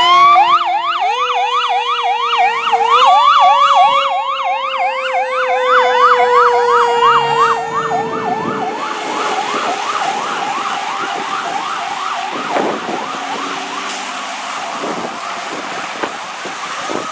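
Fire rescue truck's siren on a fast yelp, sweeping up and down about three times a second, over a lower siren tone that climbs and then slowly winds down. Both fade after about eight seconds as the truck pulls away.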